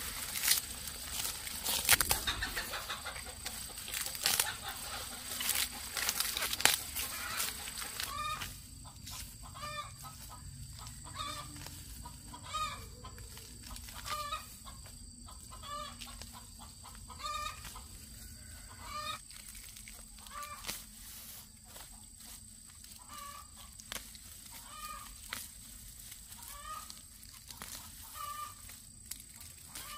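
Chickens clucking, short calls about once a second from about eight seconds in. Before that, loud rustling with sharp clicks.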